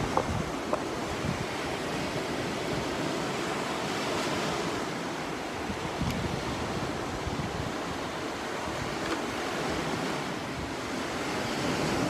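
Sea surf breaking on the shore with wind on the microphone, a steady wash that swells and eases a little; a few light clicks in the first second.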